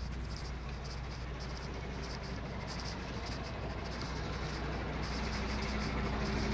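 Heavy diesel truck engine idling with a steady low hum, growing louder near the end.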